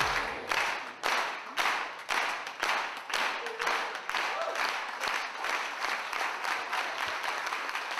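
Audience applauding, with loud single claps close by at about two a second in the first half, merging into steady applause.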